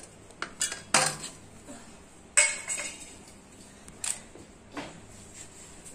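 Raw green mango being sliced by hand with a knife over a steel plate, slices dropping onto it: scattered clinks and knocks on the metal plate, the loudest about two and a half seconds in.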